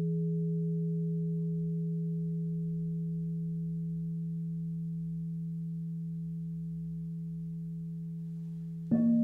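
Crystal singing bowl's deep, pure tone sustaining and slowly fading, with a fainter higher overtone above it. Near the end another bowl is struck with a mallet and rings in with a brighter, higher chord of tones.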